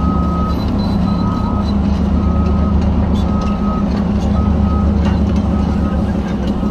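Electronic warning beeper sounding a short beep about once a second, like a reversing alarm, over a steady low engine rumble.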